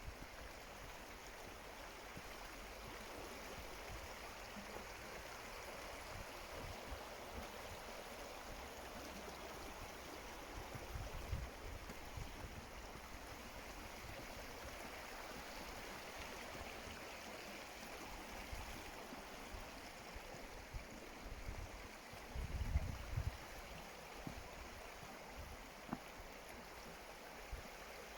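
Steady rushing of a woodland stream or waterfall, fairly faint, with a few low thumps of wind or handling on the microphone about ten seconds in and again near the end.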